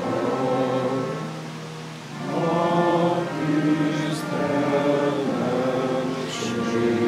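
A choir singing with orchestra in long held chords; it grows quieter about two seconds in, then swells again.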